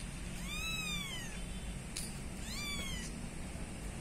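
Young kitten mewing twice: thin, high-pitched calls that rise and then fall in pitch, the first about a second long and the second shorter.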